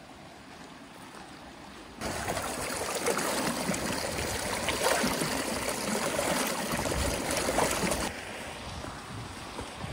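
Shallow stream water running and trickling over rock close to the microphone, with a hand held in the current. It gets much louder about two seconds in and eases a little near the end.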